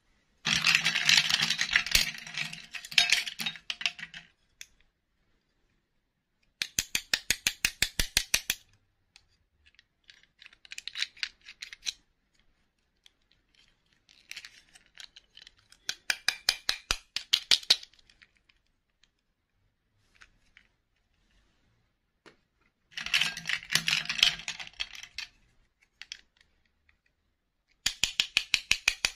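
Six bursts of rapid, evenly spaced clicking, each lasting about two to four seconds, with short silences between them.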